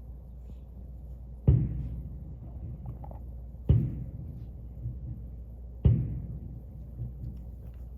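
Fireworks shells bursting overhead: three loud booms about two seconds apart, each trailing off in a rolling echo, with a few fainter pops between them over a steady low hum.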